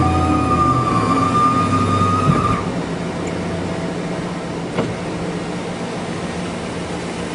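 A machine running with a steady whine over a low hum. The whine and hum stop about two and a half seconds in, leaving a quieter steady noise.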